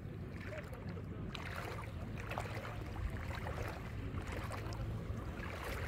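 Shallow seawater lapping and trickling close by, with small crackles and ticks over a low steady rumble.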